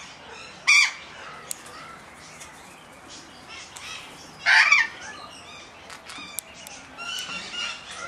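Patagonian conures calling: two loud, short squawks, one just under a second in and one about four and a half seconds in, with softer scattered calls between them and a run of calls near the end.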